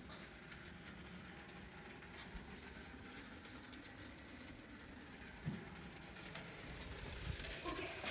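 Faint patter of heavy falling snow: scattered light ticks over a quiet hush, with a soft thump about five and a half seconds in and a few small knocks near the end.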